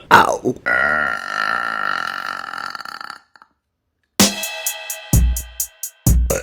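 A woman's long, drawn-out burp lasting about three seconds, opening with a short falling croak. After a second of silence, electronic music with a drum-machine beat starts.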